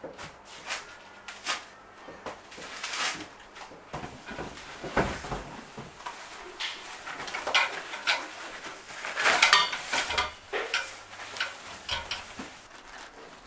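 Packaging rustling, and chrome and metal office-chair parts clinking and clanking as they are unwrapped and set down. The loudest clanks come in a cluster about nine seconds in.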